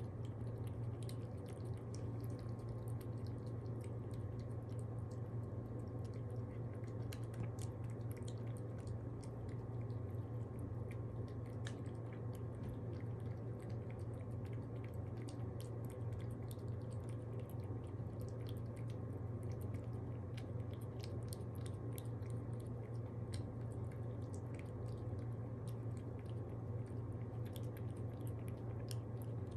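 A pet chewing wet food, with many small wet clicks, over a steady low hum.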